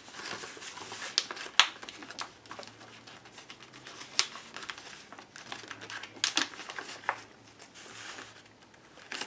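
Magazine pages being folded and flattened by hand: paper rustling and crinkling, with sharp crackles at irregular moments, the loudest about a second and a half in.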